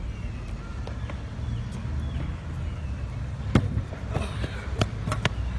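Stunt scooter rolling on concrete with a low rumble, then a sharp loud clack about three and a half seconds in as the scooter strikes the concrete bank, followed by a few lighter clacks as it comes back down.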